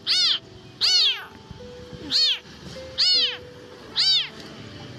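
Young black kitten meowing loudly and repeatedly, five high-pitched cries about one a second, each rising then falling in pitch. It is the crying of an abandoned kitten, which its rescuer thinks is hungry and thirsty and calling for its mother.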